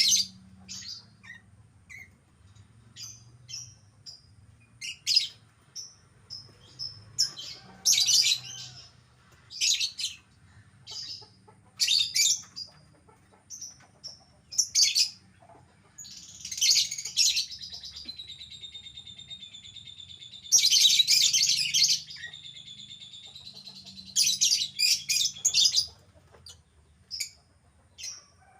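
Lovebird making shrill, high chirps at irregular intervals. About halfway through, this turns into a continuous chattering trill with loud bursts that lasts roughly ten seconds.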